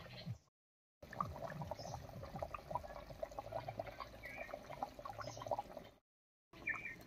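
Curry gravy bubbling at a simmer in an iron kadai over a wood fire: a quick, irregular run of small pops and gurgles, broken twice by short silent gaps.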